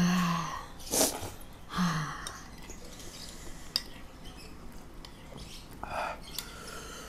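Someone eating at a table: a spoon clicks once against a plate, there are a couple of short hums, and a sniff about six seconds in, of the kind that comes from eating hot chilies.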